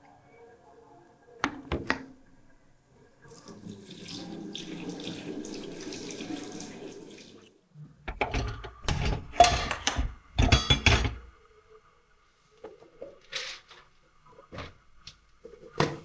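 Water running from a tap into a sink for about four seconds, then a few seconds of loud, irregular knocks and clatter, with scattered softer clicks near the end.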